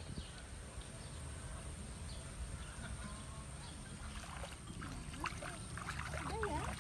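Shallow stream water flowing over stones, with a steady low rumble. From about two-thirds of the way through, bare feet wade in the stream: short splashes and sloshes, with a brief wavering call over them.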